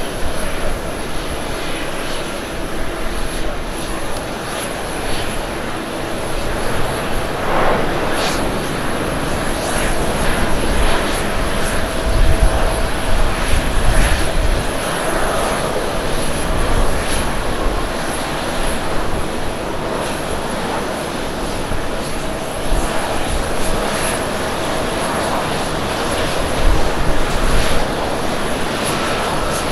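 Boeing 737-700 airliner's CFM56-7B jet engines running through touchdown and the landing rollout: a steady jet roar with a faint held tone, swelling a little about halfway through.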